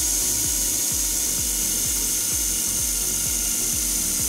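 Cordless drill-driver running steadily at speed, its 4 mm wood bit boring through a doweling jig into a wooden board.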